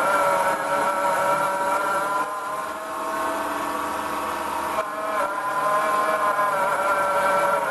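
Small 775 DC motor cross drill whining steadily as it drills into hard metal. Its pitch sags briefly as the bit loads up in the cut, once at the start and again about five seconds in.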